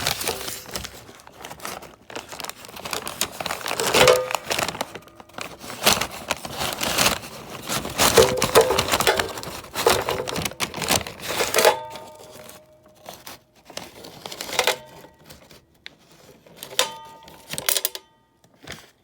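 Packaging crinkling and rustling as it is handled and opened. In the second half come several short metallic clinks with brief ringing, as of broken engine pieces knocking together.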